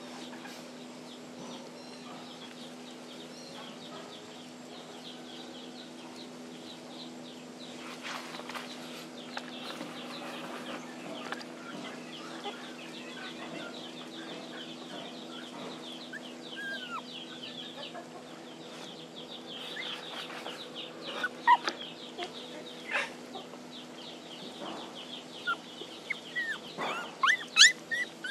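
Young puppies whimpering and yelping in short high cries, crying for their absent mother; the cries start about two-thirds of the way in and grow frequent and loud near the end. Underneath are a steady low hum and faint high chirping.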